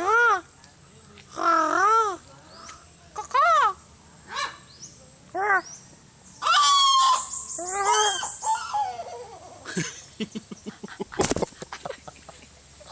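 A bird giving a run of laugh-like calls in bursts, each note rising then falling in pitch. A sharp knock comes near the end.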